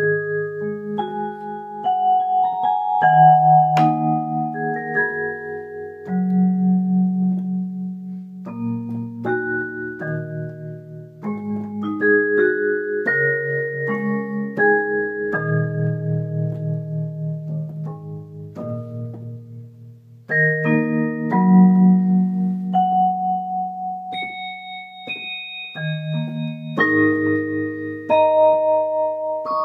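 Electronic keyboard playing a vibraphone-like voice: ringing chords and melody notes over held bass notes, with the notes overlapping as they sustain.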